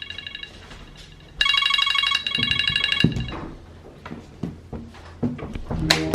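A phone's trilling electronic alarm tone, heard briefly at the start and again for under two seconds about a second and a half in, followed by a series of soft knocks and taps.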